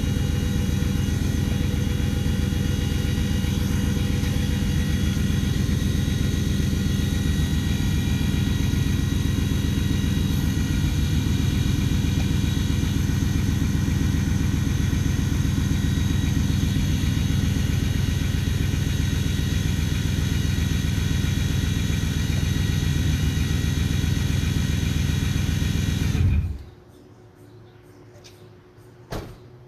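Ford Lightning race truck's engine running steadily and loud, then shut off abruptly near the end, followed by a single click.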